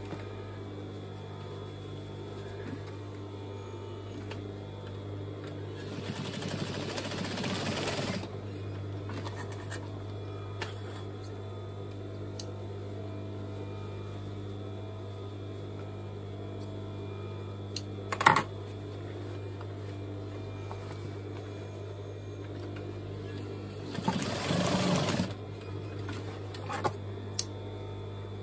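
Juki DDL-8700 industrial lockstitch sewing machine's motor humming steadily while the needle is at rest. Two louder stretches of rustling come about six and about twenty-four seconds in, and a sharp click about eighteen seconds in.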